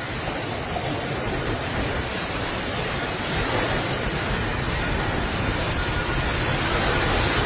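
Strong storm wind blowing, a steady rushing noise that grows a little louder toward the end.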